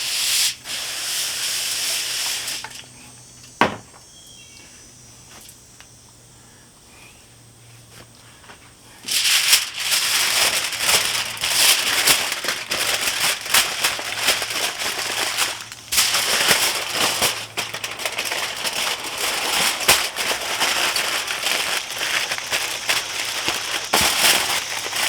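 A spray bottle hissing briefly as the meat is spritzed. Then, after a quiet pause, wrapping material crinkles and crackles densely and at length as a smoked pork butt is wrapped up.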